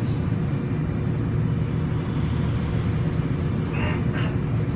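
Streetcar running, heard from inside the car: a steady low rumble with a faint steady hum, and a brief faint higher sound near the end.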